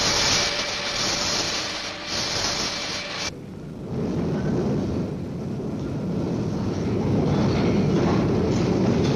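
A steady hiss that swells about once a second, then cuts off sharply about a third of the way in. A low rumble of mine wagons rolling on rails follows.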